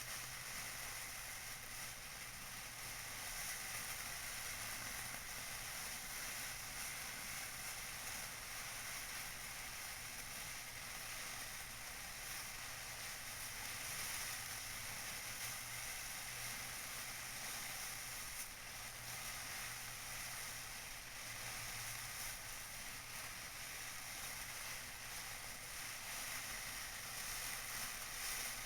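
Tissue paper being crinkled and crumpled by hand, a steady, dense crackle with no pauses.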